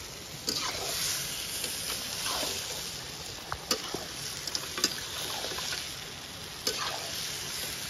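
A metal spatula scraping and stirring goat intestine pieces in a steel kadai, with repeated sweeping scrapes and a few sharp clinks against the pan, over a steady hiss.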